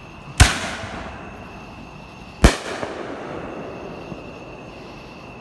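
Two loud fireworks explosions about two seconds apart. Each is a sharp bang followed by a rumbling echo that dies away over a second or more.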